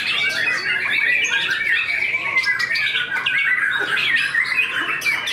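White-rumped shamas singing, a dense unbroken run of fast, overlapping warbled and whistled phrases with harsher notes mixed in.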